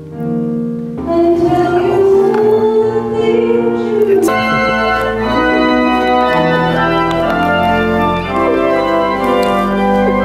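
Organ music: loud held chords that change every second or so, growing fuller about a second in.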